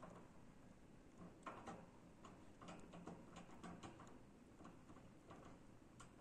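A hamster gnawing a hard, dry sushka: faint, irregular crunching clicks, several a second.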